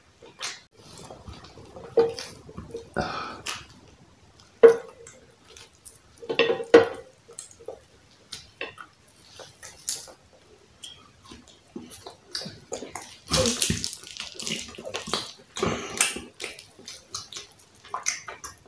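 Close-miked eating sounds: roast turkey meat pulled apart by hand and chewed, a run of short wet clicks, lip smacks and squelches.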